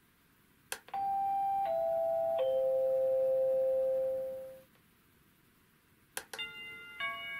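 Croma 230A electronic door chime playing a ringtone of three notes stepping down in pitch, the last one held for about two seconds, started by a click of its melody-select button. Near the end another button click, and the next ringtone starts as a quicker run of chime notes.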